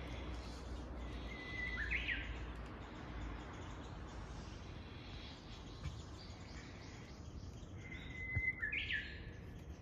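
Japanese bush warbler (uguisu) singing twice: each song is a held whistle followed by a quick flourish, the first about a second in and the second near the end.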